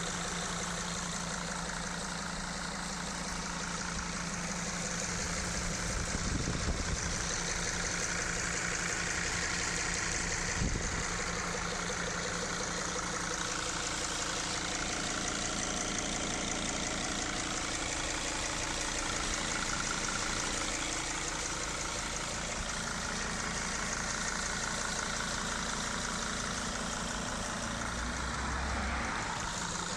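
Mercedes 2.7-litre five-cylinder turbo diesel engine idling steadily with the bonnet open, heard up close in the engine bay. Two brief thumps come about six and eleven seconds in.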